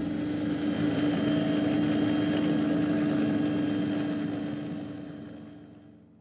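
Steady drone of an aircraft engine with a constant hum, fading out over the last couple of seconds.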